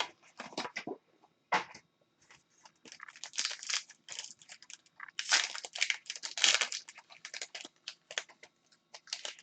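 Trading-card pack wrapper and cards being handled: crinkling, rustling and tearing in irregular spells as the next pack is opened.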